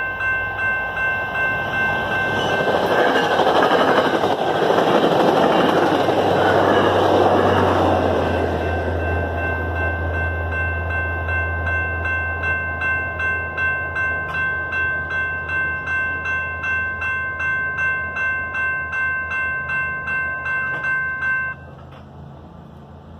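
A General Signal Type 2 mechanical grade-crossing bell rings steadily at about two and a half strikes a second, then stops abruptly near the end as the crossing clears. A commuter train rushes through from about two to eight seconds in, followed by a lingering low rumble.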